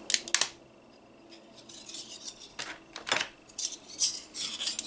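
Anodised aluminium robot-kit beams and brackets clinking and rattling against each other as they are handled and spread out, in several short bursts.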